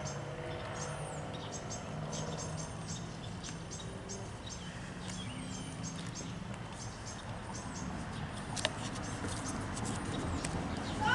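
Small birds chirping, short arched calls repeated over and over, over a low steady hum, with one sharp click about three-quarters of the way through.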